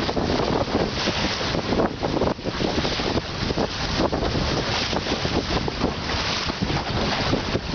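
Wind buffeting the microphone over water rushing and slapping along the hull of a Drascombe Lugger sailing in a 10–15 knot breeze. The result is a rough, gusting noise that rises and falls unevenly.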